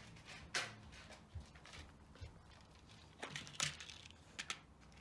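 Faint handling noises over a low hum: a few short clicks and rustles, one about half a second in and a cluster between about three and four and a half seconds.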